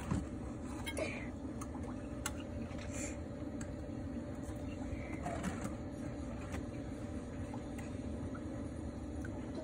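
A steady low hum, with a few faint clicks and light taps now and then.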